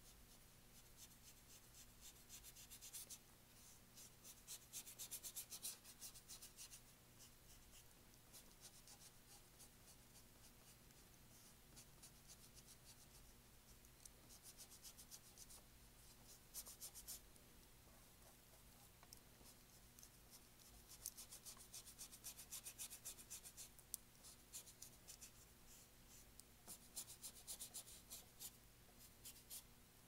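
Flat paintbrush scrubbing acrylic paint onto canvas: quiet, scratchy, rapid back-and-forth strokes that come in several short runs of a few seconds each. A faint steady hum lies under them.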